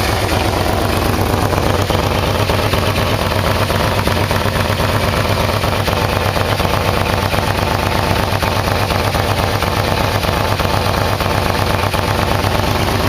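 Yamaha VMax V4 engine idling steadily, warmed up to operating temperature. It runs through stock mufflers whose covers have had holes punched in them to make it louder.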